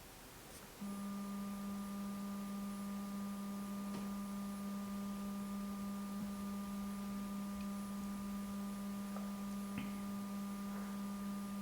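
Electric skateboard's brushless motor, driven by a VESC controller during motor detection, giving off a steady low electronic hum of one pitch with faint higher overtones. It starts about a second in and stops suddenly at the end.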